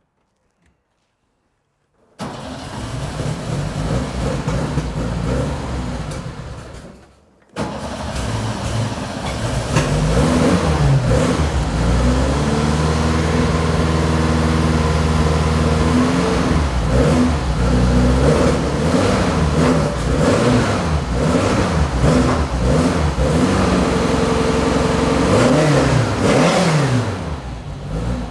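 Porsche 356 race car's air-cooled flat-four on Weber carburetors starting about two seconds in. It falls away briefly around seven seconds, then runs on and is revved up and down again and again. It sounds pretty darn healthy.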